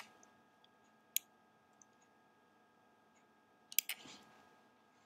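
A few faint, sharp clicks at the computer: one about a second in and a quick pair just before four seconds.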